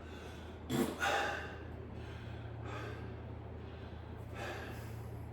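A man breathing hard from exertion during an ab crunch workout: a short grunt and a sharp breath about a second in, then a few slower, softer exhales.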